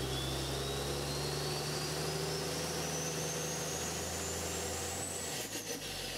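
An engine running steadily under a thin high whine that climbs slowly and then starts to fall about five seconds in, with a few clicks as the low hum changes.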